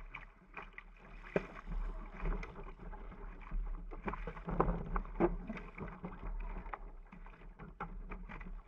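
Water splashing and slapping against the hull of a single-handed sailing dinghy under way, with sharp knocks scattered through it and a low wind rumble on the microphone.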